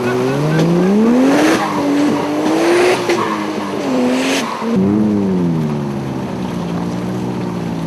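Off-road 4x4 engine revving up and down again and again as the truck crawls across a rocky riverbed, with a few short bursts of splashing water.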